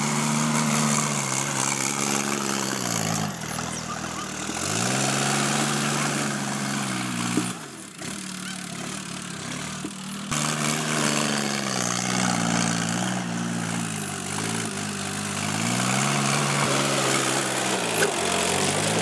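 Sonalika DI 50 RX Sikander tractor's diesel engine running under load while driving a rotavator through the soil. Its pitch sags and recovers a few times, most deeply about three to four seconds in, as the tilling load rises.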